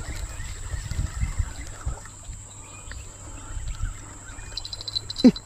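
Forest riverside ambience: a steady high-pitched insect drone over irregular low bumping and rumbling, with a brief rapid run of high chirps near the end.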